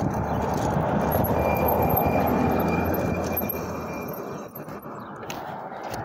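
Wind rushing over the microphone and tyre noise from a bike riding along a paved street, with a thin high whine running through the middle. The rush dies down after about four seconds as the bike slows, and a few sharp handling knocks follow near the end as a hand grabs the phone.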